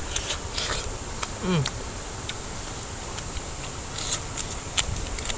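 Crisp raw cactus pad being bitten and chewed close up: a string of sharp, crisp crackles. A short falling hum from the eater about a second and a half in.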